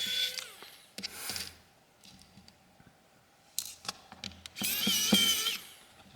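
Electric precision screwdriver whirring in two short runs, backing screws out of a phone: a brief run about a second in and a longer one near the end. Light clicks come in between.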